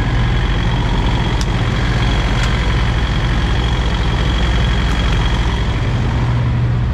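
Semi-truck's diesel engine running steadily, a low, even drone, with a few faint ticks.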